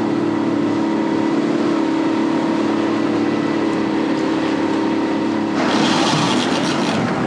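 60 hp outboard motor pushing a panga at steady cruising speed, a steady drone that holds one pitch. From about five and a half seconds in, a loud rushing hiss of water and spray along the hull joins it.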